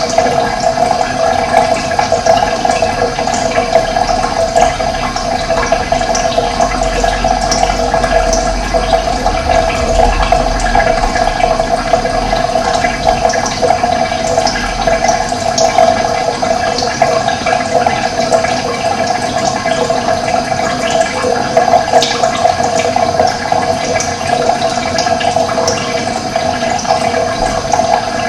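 Running water flowing steadily, a continuous rushing sound.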